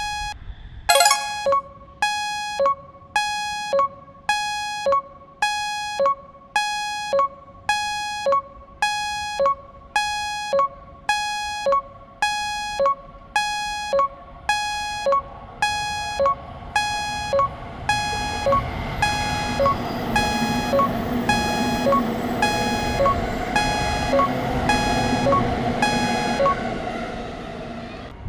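Japanese railroad crossing warning bell ringing over and over, about one and a half strikes a second. From about two-thirds of the way in, a steady rumble, likely a passing train, rises under the bell.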